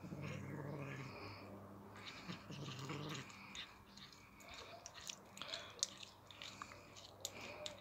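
Cat growling low and drawn out for about three seconds at another cat close by, a territorial warning, followed by a scatter of light clicks.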